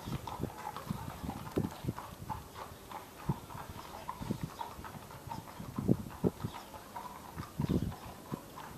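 Irregular soft thuds and light rustles in dry leaves and wood-chip mulch, a louder cluster of thuds a little past the middle and again near the end.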